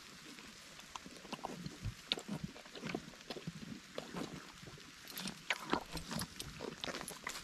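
Donkey chewing watermelon close up: an irregular run of wet crunches and clicks as it bites and grinds the rind, busier in the second half.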